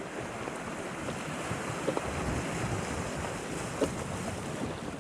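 Wind buffeting the microphone over the wash of sea waves, with two short knocks, one about two seconds in and a louder one near four seconds.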